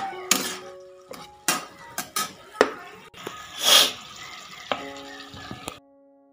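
Metal spatula scraping and clinking against a kadai while fish curry is turned in hot oil and masala: a series of separate scrapes, with a longer hiss about two-thirds through. Soft background music with held notes underneath; the kitchen sounds stop abruptly shortly before the end, leaving only the faint music.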